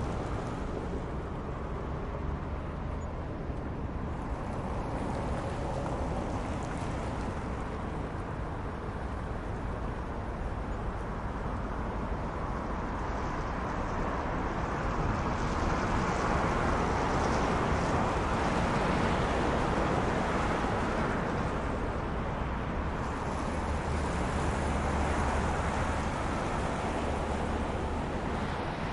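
City traffic ambience: a steady low hum of distant road traffic, with a louder swell in the middle as vehicles pass through the crossroads, then easing back.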